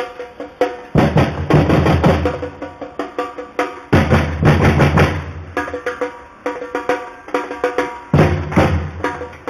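Carnival bloco percussion band playing a fast rhythm on drums, with three heavier, louder accents about one, four and eight seconds in.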